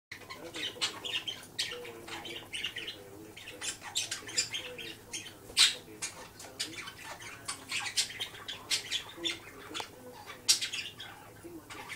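Pet budgerigar chattering: a rapid, continuous run of chirps, clicks and warbles.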